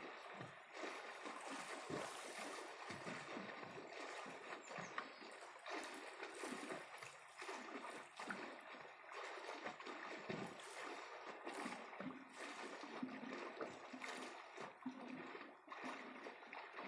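Sea waves washing on the shore, a steady rush of surf that swells and eases.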